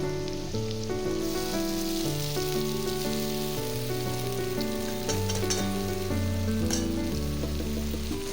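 Egg chow mein sizzling as it is stir-fried in a kadai, with a few short clicks about five to seven seconds in, under background music.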